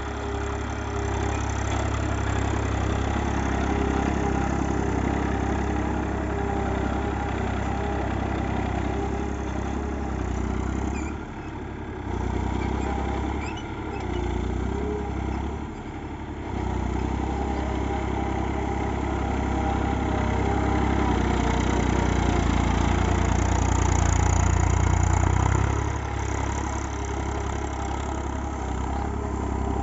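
Massey Ferguson tractor's diesel engine running as it drives over heaps of paddy straw to thresh the rice. The engine note dips briefly three times around the middle, then grows louder for a while later on before easing off near the end.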